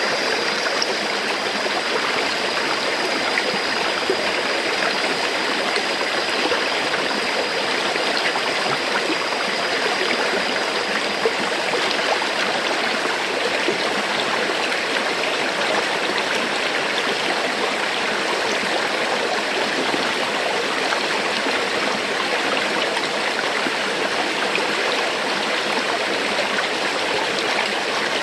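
River water flowing steadily over rocks, an even rushing and babbling. A faint high steady tone sits under it for the first dozen seconds.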